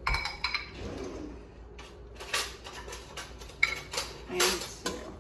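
Metal ladle knocking and scraping against a stainless-steel stockpot and a small serving bowl as soup is ladled out: a string of short clinks, one with a brief metallic ring.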